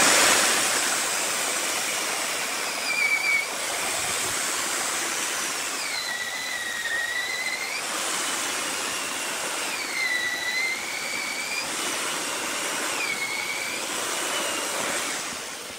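Corded electric chainsaw cutting into a log: a steady high motor whine over chain hiss. The whine drops in pitch about four times as the chain bites into the wood under load and climbs back as the cut eases. It fades out at the very end.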